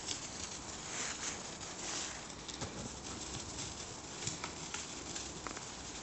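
Footsteps crunching and rustling through thin snow over dry leaves, with small irregular crackles and twig snaps.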